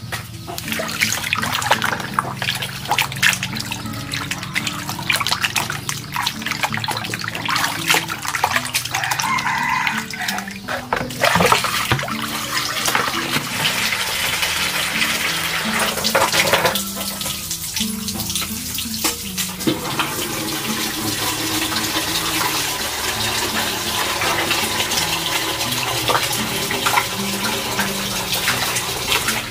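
Water running and splashing, as when something is washed under a tap, over background music with a simple melody.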